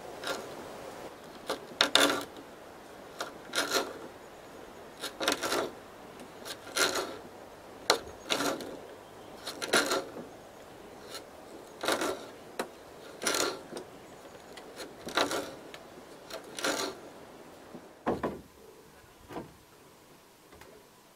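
A hand tool scraping or rasping against a wooden pole in slow, regular strokes, about one every second and a half, stopping a few seconds before the end.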